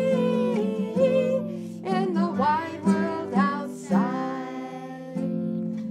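A woman singing a children's song while strumming a nylon-string classical guitar; a long held note opens, then several short sung phrases over strummed chords that fade toward the end.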